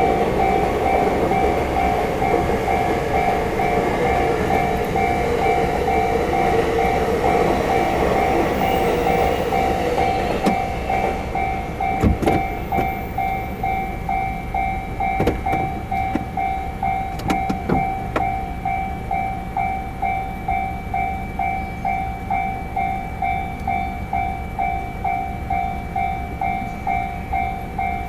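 Japanese railway level-crossing alarm ringing steadily, about two strikes a second, while a train runs past over the crossing. The train's rumble dies away about ten seconds in, leaving the alarm and a few sharp knocks.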